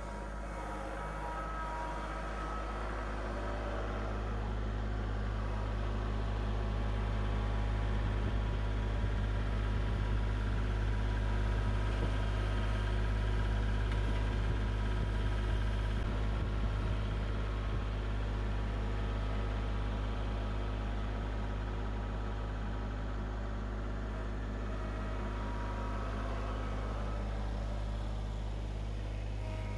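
Kubota L3901 compact tractor's three-cylinder diesel engine running at a steady speed as the tractor drives past, growing louder over the first half and then easing off a little.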